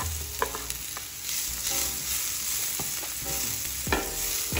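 Diced onions sizzling in hot olive oil in a nonstick frying pan, with a slotted spatula scraping and tapping against the pan as they are stirred. A few sharp knocks from the spatula stand out over the steady hiss.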